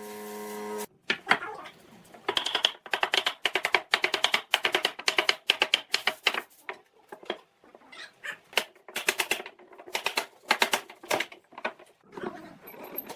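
A rapid, uneven run of sharp clicks or taps, several a second in clusters, preceded by a brief steady tone at the very start.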